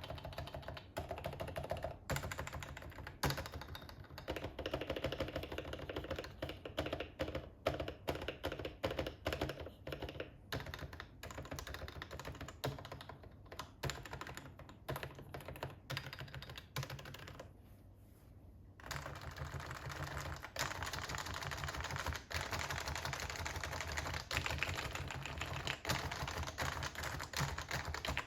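Typing on a Happy Hacking Keyboard Pro 2 with its stock Topre rubber-dome switches and sliders. The keys give fast, continuous muted clacks, with a brief pause a little past the middle and then faster typing.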